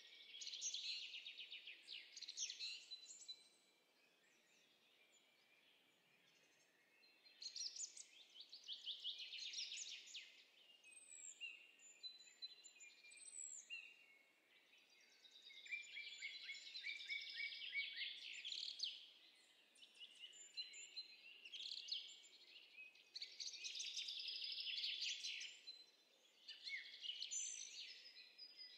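Songbirds chirping and trilling in quick bursts: a nature birdsong sound effect. There is a lull of a few seconds near the start.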